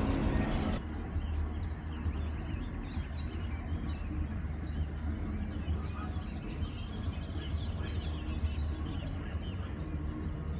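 Many small birds chirping and singing in quick short notes over a steady low hum. A piece of music ends about a second in.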